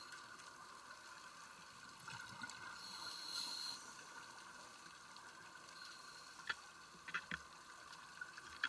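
Faint underwater sound recorded from a diver's camera: a steady hum, a scuba regulator breath hissing about three seconds in, and a few short clicks near the end.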